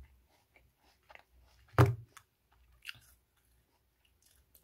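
Quiet crunching and chewing of apple in small clicks, with one sharp knock about two seconds in as the apple core is set down into the bowl.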